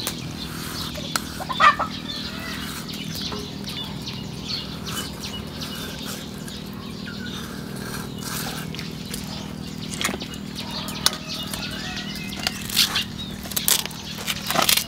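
Birds chirping and fowl clucking, over a steady low hum and scattered short clicks and scrapes.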